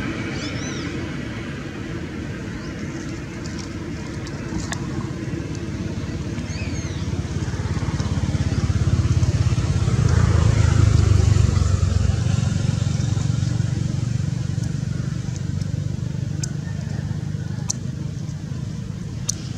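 Low rumble of a passing motor vehicle, growing louder about halfway through and fading again, with a couple of faint high chirps.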